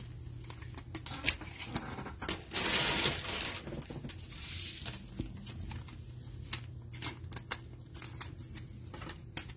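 Football trading cards handled by gloved hands: cards ticking and tapping against each other and sliding on the tabletop, with a longer rustling slide about two and a half seconds in.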